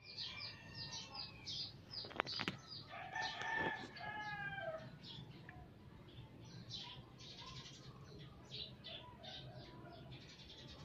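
Small birds chirping in quick, repeated short notes throughout, with a rooster crowing for about a second and a half near the middle. Two sharp clicks come just before the crow.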